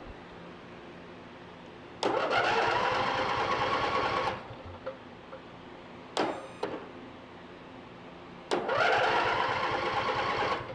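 Electric starter cranking a Briggs & Stratton twin-cylinder lawn tractor engine in two bursts of about two seconds each, with a short blip between. The engine turns over but does not fire, even with fuel poured down the carburetor.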